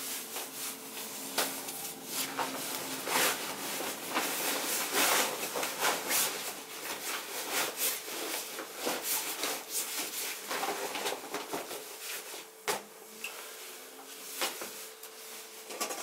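Fabric and gear rustling and rubbing as items, among them a seat or sleeping pad, are handled and stuffed into a backpack, in an uneven run of scrapes and soft knocks.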